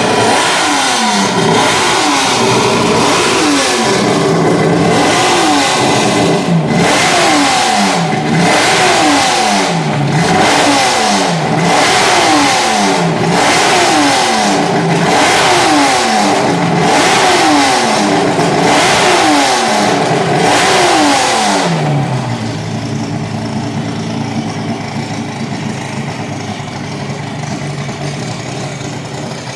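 Turismo Carretera race car engine revving hard and loud, its pitch swinging up and down about every second and a half, then settling to a quieter, steady running sound about 22 seconds in.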